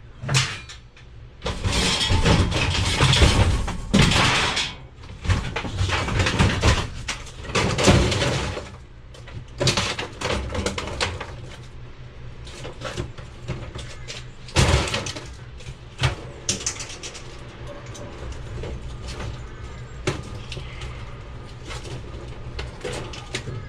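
Scrap metal being handled and dropped: irregular clanks, knocks and clattering, heaviest in the first nine seconds, with scattered knocks after that.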